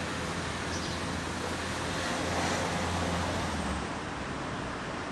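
Street traffic noise: a passing motor vehicle's low engine drone swells about two seconds in and drops away near the end, over a steady outdoor background.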